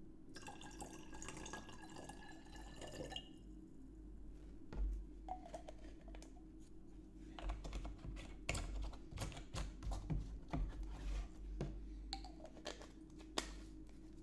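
Distilled water poured from a plastic tube into a glass media bottle for about three seconds, with a faint tone rising in pitch as the bottle fills. Then a run of light clicks and knocks as plastic tubes, caps and bottles are handled and set down on the table.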